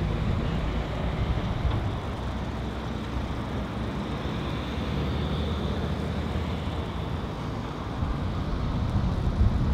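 Diesel engines of Hitachi Zaxis 350 excavators running as they dig and load a dump truck: a steady low engine sound, a little louder near the start and near the end.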